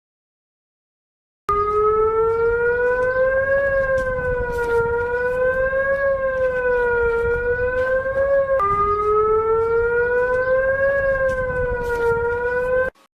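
Emergency alert siren sounding a steady wailing tone that slowly rises and falls in pitch, about once every two and a half seconds. It starts abruptly after a second and a half of silence, drops suddenly back in pitch about two-thirds of the way through, and cuts off sharply near the end.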